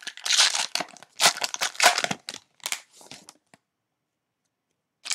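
Cellophane wrapper of a trading card cello pack being torn open and crinkled: a quick run of crisp rustles that stops about three and a half seconds in, with one more short rustle near the end.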